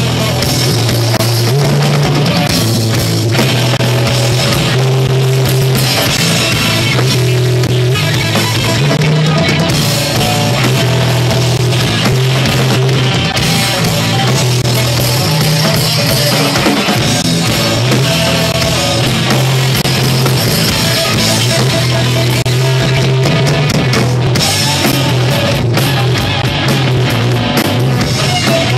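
A rock trio playing loudly and continuously: electric guitar, bass guitar with a moving bass line, and drum kit with cymbals.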